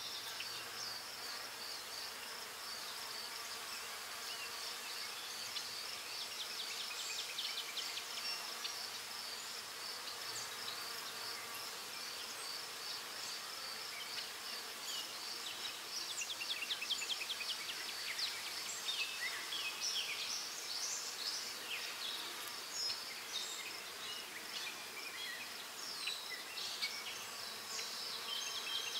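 A graphite pencil scratching on paper in short shading strokes, in several bursts, over a steady high-pitched pulsing trill.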